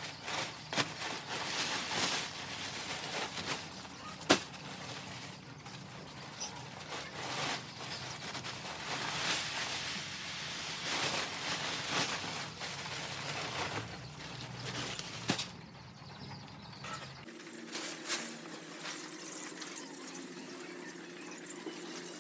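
Young broiler chickens rustling about and flapping their wings, with scattered clicks and knocks. A low hum underneath stops about three-quarters of the way through.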